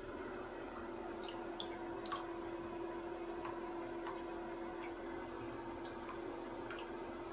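Shallow bathwater stirred by a baby Chacoan tegu paddling in a tub: scattered small drips, splashes and ticks, over a steady low hum.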